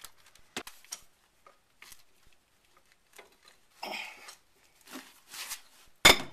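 Light clicks and clatter of a socket and breaker bar being fitted onto a rusty rear-strut bolt, then one sharp metallic crack near the end as the seized bolt breaks loose under the bar.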